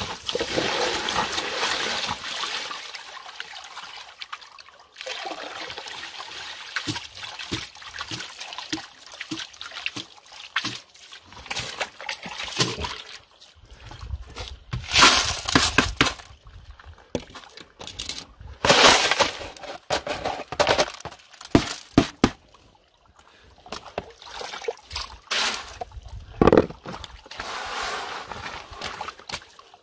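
Muddy water poured out of a plastic basin, splashing down in a long pour at the start. It is followed by shorter pours, sloshing and splashes as the basins are handled in shallow water.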